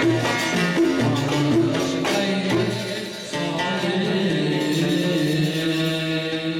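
Arabic song music with plucked strings and hand percussion, briefly dropping in loudness about three seconds in.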